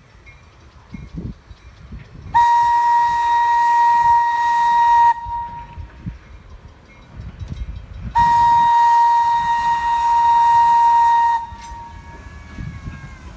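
Thomas the Tank Engine replica's whistle blowing two long, single-pitched blasts of about three seconds each as the train approaches a crossing.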